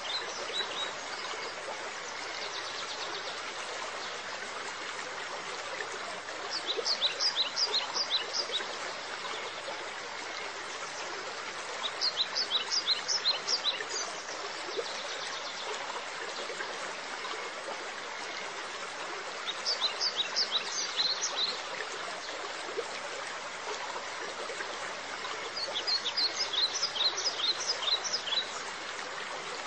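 Steady running water of a stream, with a bird singing a short phrase of quick high chirps four times, about every six to seven seconds.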